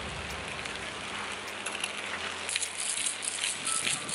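Spaghetti with crumbled bottarga sizzling in a hot frying pan on a grill over embers as it is mixed. The crackling gets louder and busier about halfway through.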